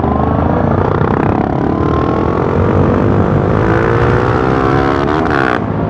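Motorcycle engine running on the move, its pitch climbing slowly as it accelerates and dipping near the end, over heavy wind rumble on the microphone.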